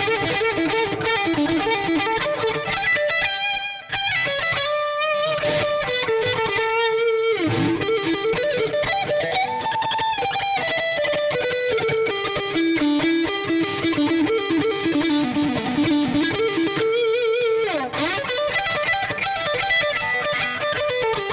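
Epiphone Les Paul Custom electric guitar played through distortion: a lead solo of single-note lines with sustained notes shaken by vibrato, and fast swooping slides in pitch twice, about seven seconds in and near eighteen seconds.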